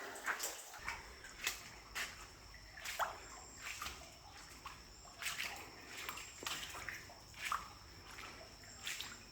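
Water dripping inside a limestone cave: single drops falling into pools at irregular intervals, roughly one every second, faint against a quiet background.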